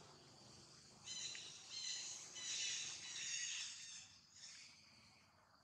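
Baby long-tailed macaque crying: a run of high-pitched squealing calls from about a second in until about four seconds in.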